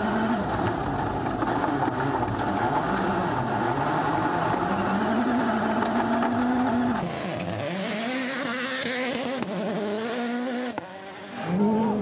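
Rally car's engine revving hard and dropping through gearshifts, heard from inside the car, with a steady noise of tyres on gravel beneath it. About two-thirds of the way through the sound thins out and the revving rises and falls faster. Near the end it dips briefly before a loud engine note comes back.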